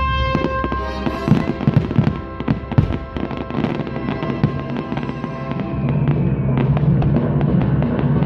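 Fireworks going off: a dense run of bangs and crackling from about a second in, over music. The fireworks thin out after about five seconds, and the music's low notes grow louder near the end.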